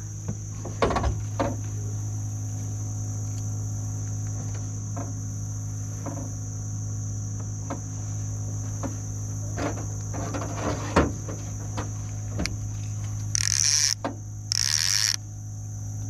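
A steady low electric hum with a constant high whine, broken by scattered knocks and clicks, and two short hissing bursts near the end.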